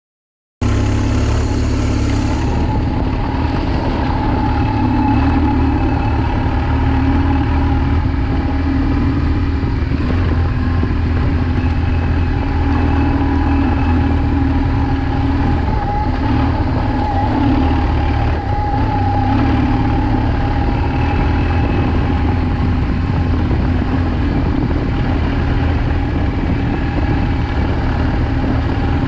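A BMW R1200GS's boxer-twin engine running steadily at low revs. It cuts in abruptly just after the start.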